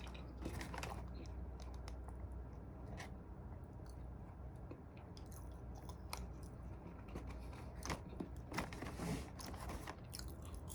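A person chewing a burger close to the microphone: quiet, scattered mouth clicks and smacks over a low room hum.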